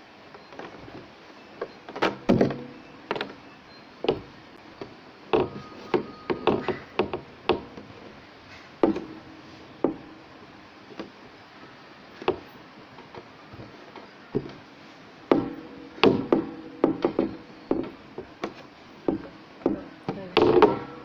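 Irregular knocks and taps as a rope is pulled and wrapped around a pole on a table while a knot is tied, with hands and rope bumping the pole and tabletop. The knocks come in clusters, some ringing briefly.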